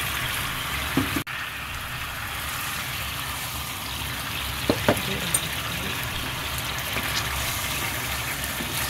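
Soy-based sauce bubbling and sizzling in a nonstick frying pan, thickening as potato-starch slurry is stirred in, with a few brief knocks.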